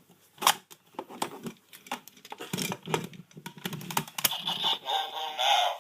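Plastic clicks and knocks from the DX Leangle Buckle toy transformation belt being handled as a card is loaded and the buckle pushed in. Near the end the buckle starts playing its electronic sound effect.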